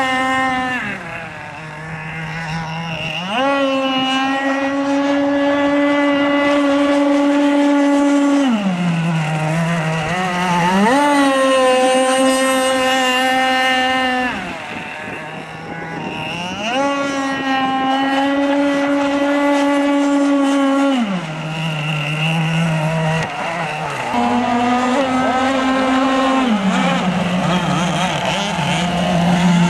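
Radio-controlled racing speedboat's engine running flat out at a high, steady pitch. About every six seconds it drops to a lower pitch for a second or two as it eases off, then winds back up.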